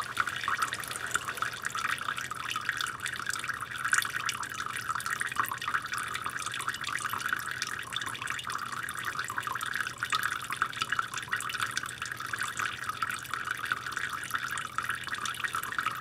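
A tap left running in a thin stream to keep the pipes from freezing, the water splashing steadily onto the water below with a dense patter of small drops.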